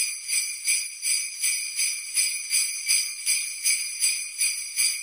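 Sleigh bells shaken in a steady rhythm, about three shakes a second.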